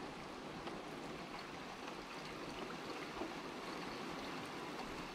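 Steady rain falling, an even hiss with a few scattered drip ticks.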